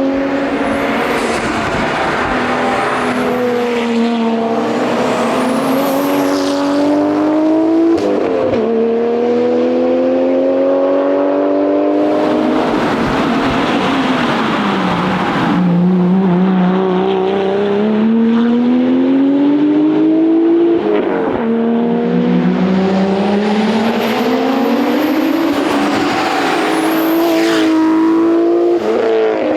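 Nissan R33 GTR's twin-turbo straight-six being driven hard, its revs climbing through each gear and dropping sharply at the shifts, with a longer lift-off and falling revs about halfway. A thin high whistle rises with the revs at several points.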